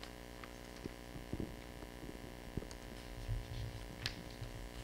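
Steady electrical mains hum with several even tones, with a few faint clicks and knocks and a low rumble in the second half.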